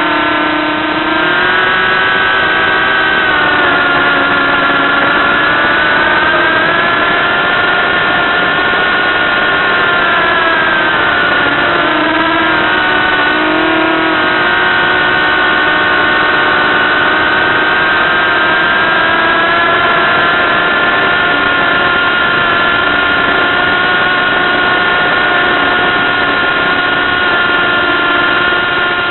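ProGo-280 quadcopter's brushless motors and propellers whining in flight: a steady pitched hum that drifts down and up as the throttle changes, wavering about ten to fourteen seconds in.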